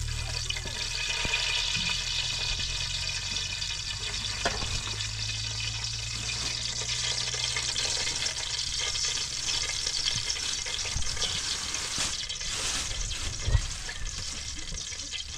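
Steady sizzle and hiss of food frying in a pan on a portable gas burner, with a low hum underneath that stops about ten seconds in and a single knock near the end.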